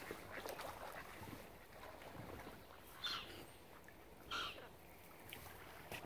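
Mallard ducks calling: two short quacks, the second about a second and a quarter after the first, over faint scattered splashes and ticks of water.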